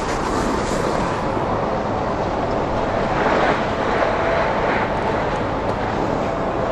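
Snowboard sliding down a groomed slope, a steady scraping rush of the board's base and edges on the snow, with small swells in the hiss around three to five seconds in.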